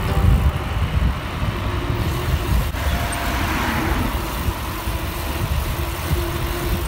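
Wind buffeting the microphone of a camera carried on a moving bicycle: a steady, gusty low rumble with road hiss above it.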